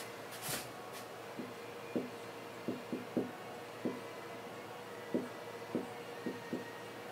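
Dry-erase marker writing on a whiteboard: about a dozen short, irregular taps and strokes of the pen tip against the board.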